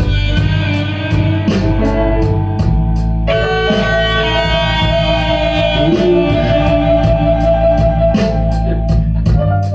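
Blues-rock band playing an instrumental passage: electric guitar holding and bending sustained notes over bass and steady drum and cymbal strikes.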